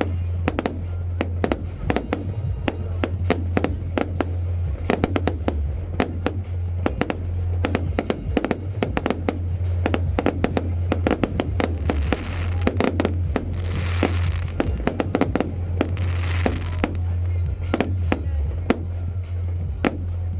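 Fireworks display going off: a rapid, irregular string of sharp bangs and cracks, with two longer crackling, hissing stretches a little after the middle.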